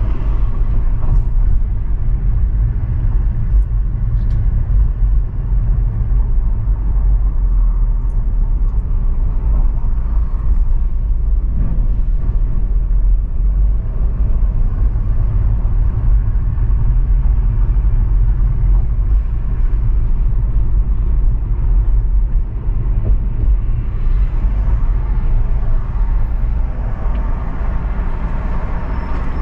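A car driving through city traffic: a steady low rumble of road and engine noise.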